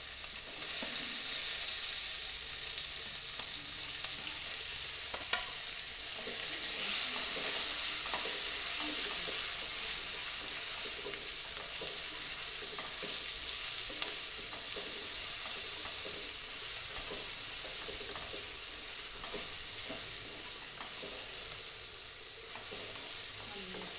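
Chopped tomatoes sizzling in hot oil in a kadhai, a steady loud frying hiss, with light scrapes and knocks of a wooden spatula stirring them. The sizzle eases slightly near the end.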